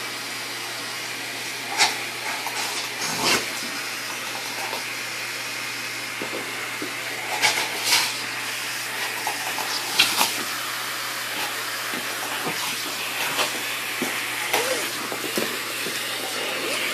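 Vacuum cleaner running with a steady hiss and low hum, air rushing through its hose, while a dog bites and paws at the hose and nozzle, making scattered sharp knocks and clatters.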